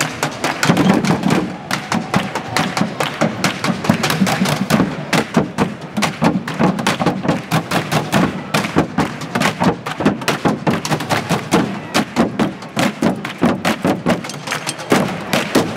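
Percussion: a dense, fast run of drum-like strikes, several a second, with no break.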